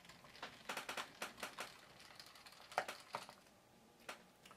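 Faint clicks and taps of a small screwdriver against a screw and the plastic base of a ThinkPad T410s laptop while the keyboard retaining screw in the RAM bay is taken out, in a cluster about a second in and a few more around three seconds.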